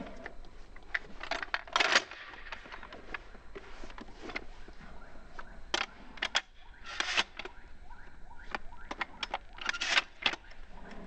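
Pump-action shotgun being loaded by hand: a run of small metallic clicks and clinks as shells are pushed into the tube magazine, with several louder clacks spread through.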